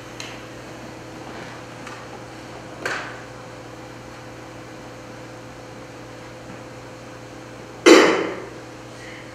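Quiet hall room tone with a steady electrical hum, a few small knocks and clicks, and one loud sudden noise about eight seconds in that dies away within a second.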